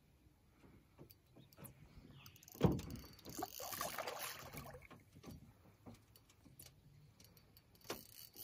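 Knocks and small clatter around a small fishing boat, with one heavier thump about three seconds in followed by a couple of seconds of splashing water.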